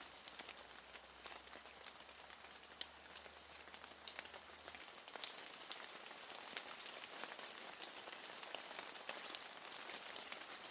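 Steady rain falling against a window pane: a soft, even hiss dotted with the light ticks of single drops striking the glass.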